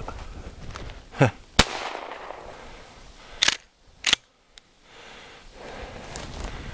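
A gunshot at a rabbit about a second and a half in, followed about two seconds later by two shorter sharp cracks, a little over half a second apart.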